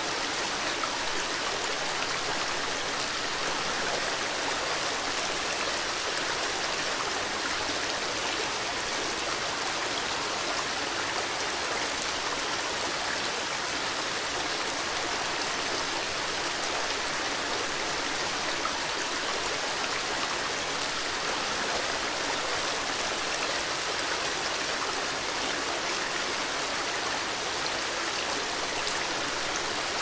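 River Nile water flowing and rushing, a steady, unbroken rush of water that does not change.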